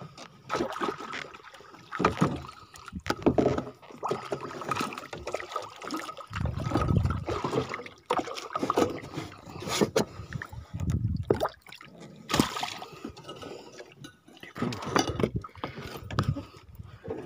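Water sloshing and splashing around a small fishing boat, with irregular knocks and handling noises and two stronger surges about six and ten seconds in.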